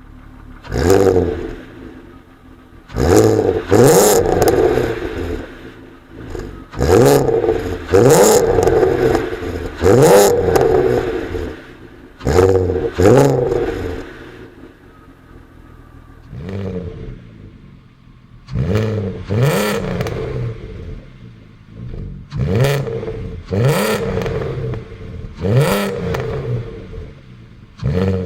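Volkswagen Mk4 Golf R32's 3.2-litre VR6 engine through a Milltek exhaust, revved from idle in a string of sharp throttle blips, each rising in pitch and falling back to idle, about one every two seconds with a lull in the middle: the growl the owner calls Wookie noises.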